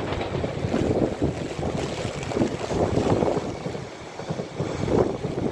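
Gusty wind buffeting the microphone, mixed with the running noise of a passenger multiple-unit train passing below on the main line.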